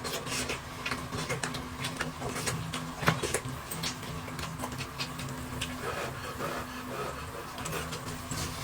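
Eating sounds: chewing and lip smacks with many small clicks and taps, over a steady low hum.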